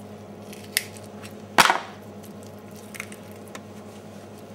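Knife work on a turkey carcass on a chopping board while a snapped wishbone is cut free: a sharp click just under a second in, a louder knock about a second and a half in, then a few faint ticks.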